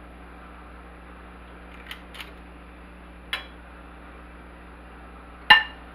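Metal portion scoop clicking and clinking against a ceramic mixing bowl while hush puppy batter is scooped: a few faint clicks, then one sharp clink with a brief ring near the end.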